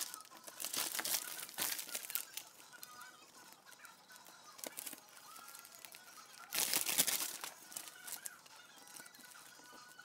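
Plastic vacuum-bagging film crinkling and rustling as it is handled and pressed onto sealant tape along a mould edge, with louder bursts about a second in and again around seven seconds in.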